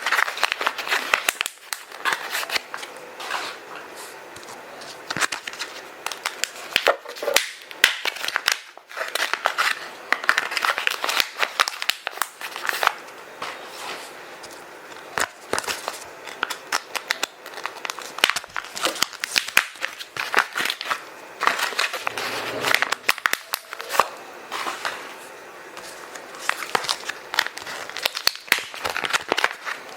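Kraft paper and plastic bags crumpled and stuffed into a zip bag: continuous crinkling and rustling that comes in irregular bursts of crackles, with brief lulls.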